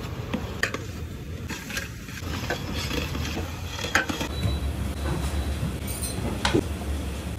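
Long metal ladle stirring in a large aluminium cooking pot, irregular scrapes and clinks of metal on metal, over a steady low hum.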